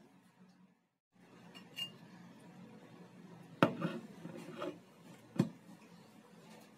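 A plate clinking and knocking against a wooden tabletop as it is set down and shifted: a few sharp knocks, the loudest about three and a half seconds in.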